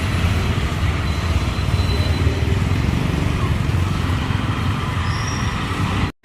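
Steady street background: a low traffic rumble with people talking indistinctly.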